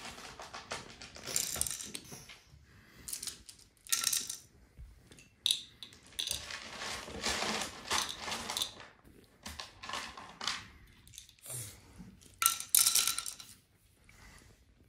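Pieces of a wooden toy train set being handled, with irregular clicks, knocks and clattering. There are longer rattling stretches in the middle and near the end.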